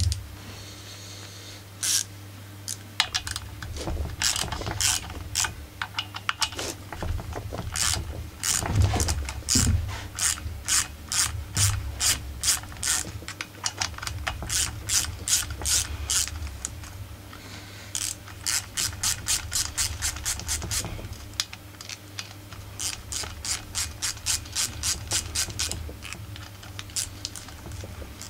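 An 8 mm ratchet combination wrench clicking in quick runs of several clicks a second, with short pauses between strokes, as it backs off the nuts holding a chainsaw's carburettor.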